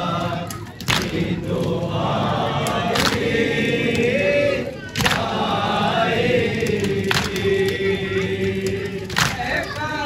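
A group of men chanting a nauha, a Shia mourning lament, in long held lines, with a sharp chest-beating (matam) strike about every two seconds keeping the beat.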